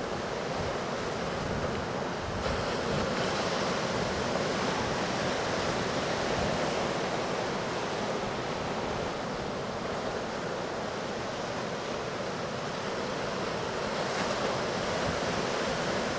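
Hurricane-driven surf breaking at a jetty: a continuous rush of waves that swells louder and eases back, with some wind buffeting the microphone.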